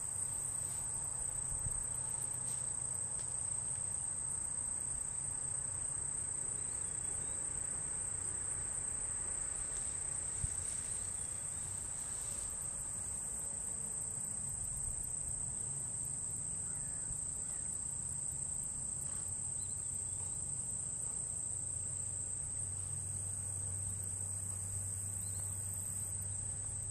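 Steady, unbroken high-pitched chorus of insects such as crickets, over a faint low rumble.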